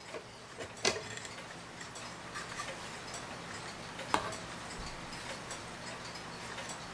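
Mantel clock's wind-up movement ticking steadily, with two sharper clicks, one about a second in and one about four seconds in.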